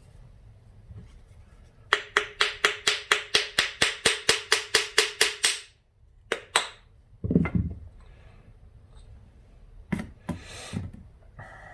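A rapid, even run of about fifteen sharp metallic clicks, about four a second, with a ringing note under them. It is followed by a low thump and the clatter of small metal parts being handled on a workbench.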